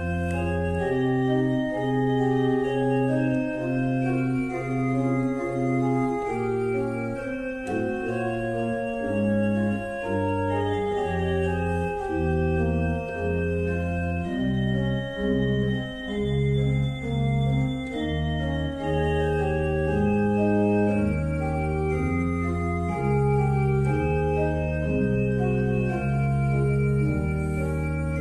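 Organ music: slow, sustained chords changing every second or so over held bass notes.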